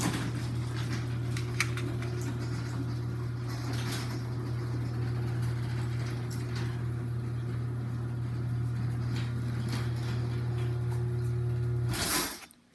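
Chamberlain chain-drive garage door opener running as it closes the door: a steady motor hum with scattered clicks from the drive, cutting off with a short clunk about twelve seconds in.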